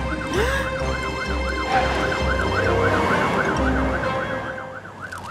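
Cartoon fire-engine siren wailing quickly up and down, about three rises a second, with a low pulsing sound underneath.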